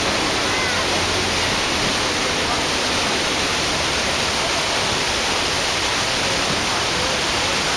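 Steady, loud rushing roar of the Iguazú Falls cascades, an even noise with no breaks.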